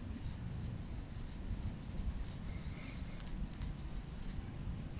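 Cloth rubbing polyWatch polishing paste into a scratched acrylic watch crystal with pressure, a soft scratchy rubbing, to polish the scratches out.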